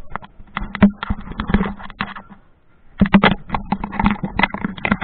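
Handling noise from a handheld action camera: dense, irregular knocks, taps and rubbing on the camera body as it is carried, muffled and dull, in two bursts with a short lull about two and a half seconds in.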